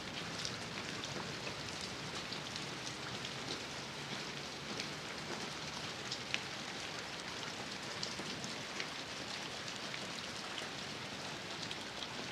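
Steady rain falling, a dense patter with individual drops ticking sharply on a hard surface.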